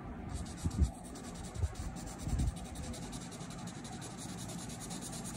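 Sketch-marker tip rubbing and scratching over paper as an area is coloured in with quick back-and-forth strokes, with a few soft low thumps in the first half.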